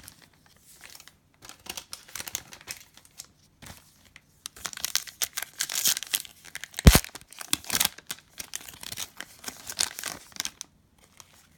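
Plastic wrapper of a trading-card pack being torn open and crinkled by hand, with one sharp knock about seven seconds in.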